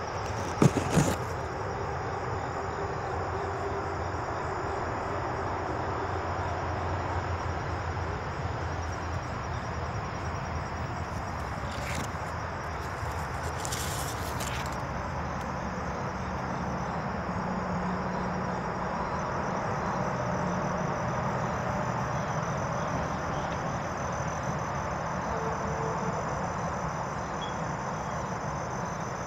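Steady outdoor background noise with insects chirping in a thin, high, steady tone. A couple of sharp knocks from the phone being handled come about a second in.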